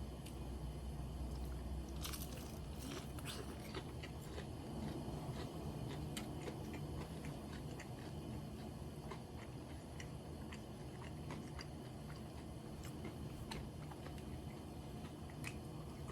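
Close-miked chewing and biting of crisp karaage (Japanese fried chicken), with a run of crunchy bites about two to four seconds in and sparser chewing clicks after.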